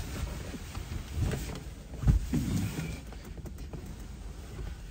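Bumps and rustling of a person shifting about inside a car's cabin, with a heavy thump about two seconds in and a smaller one about a second earlier.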